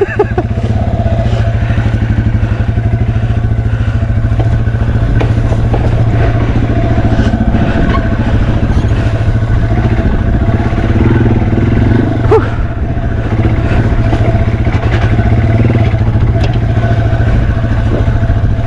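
Yamaha TW200's single-cylinder four-stroke engine running steadily on a steep trail descent, with scattered clatter and scrapes as the foot peg catches the trail edge. A sharp knock comes about twelve seconds in.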